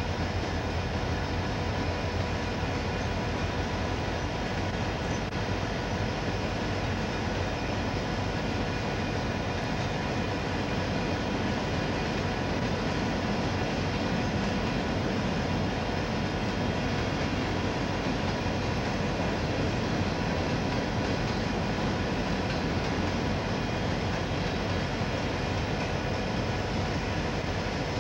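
Freight train's cars rolling steadily past on the rails: a continuous rumble of steel wheels on track, with a few steady tones running through it.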